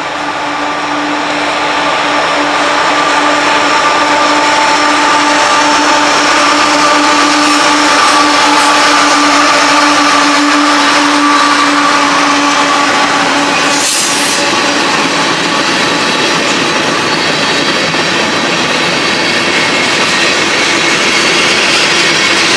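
Freight train passing close by: the diesel locomotives go past, then covered hopper cars roll by with steady wheel-on-rail noise. It grows louder over the first few seconds as the train arrives.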